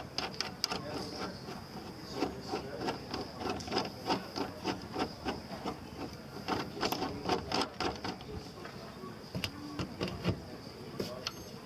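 Hand pop-rivet gun being pumped to set a rivet in sheet-metal roofing, its handles clicking in a steady rhythm of about three strokes a second. The clicking thins out near the end to a few single sharp clicks.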